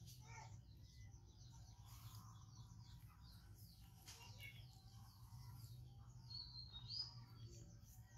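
Faint bird chirps and twittering, with one louder tweet near the end, over a low steady hum.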